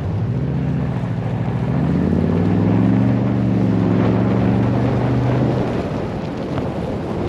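2021 Toyota Tundra TRD Pro's V8 engine accelerating: its pitch climbs over the first few seconds, holds, then falls away near the end. Wind noise on the microphone runs underneath.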